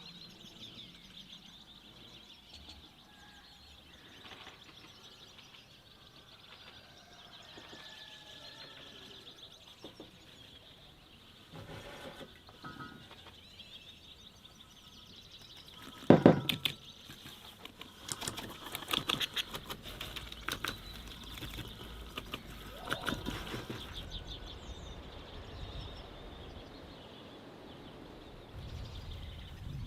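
Birds chirping faintly in the open air. About sixteen seconds in there is a sharp knock, followed by several seconds of quick clattering and scraping from something being handled.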